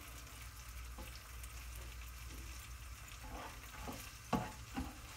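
Tinned borlotti beans with garlic and rosemary heating in a pan, sizzling faintly as a spoon stirs them, nearly heated through. Two sharp knocks of the spoon against the pan come just after four seconds in.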